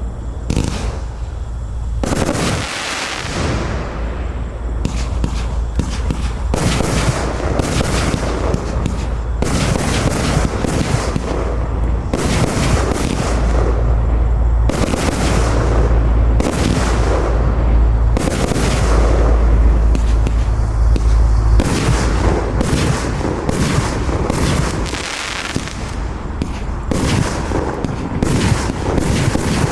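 A compound fireworks cake of 25–30 mm shots firing a rapid, continuous barrage: launches and bursts follow one another with hardly a break, with deep booms underneath. It is loudest around the middle.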